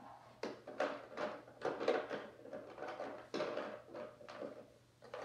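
Irregular knocking and clattering from objects being handled and set down: about a dozen sharp hits in quick, uneven succession.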